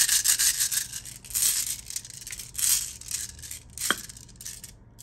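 Rune stones being rummaged and shaken in a pouch: repeated rustling with stones clinking, and one sharper click about four seconds in, then the handling stops near the end.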